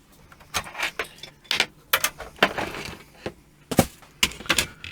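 Sharp clicks and knocks of plastic and metal computer case parts being handled and fitted together, about a dozen at irregular intervals, as a Dell OptiPlex desktop is closed up.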